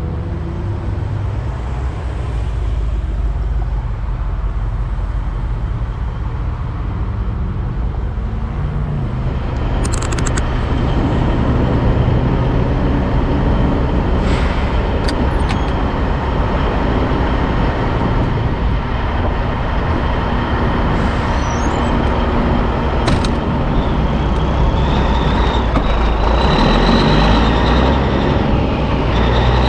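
Peterbilt 362 cabover semi-truck's engine running steadily under way, with road noise and a few short clicks. The engine note climbs near the end.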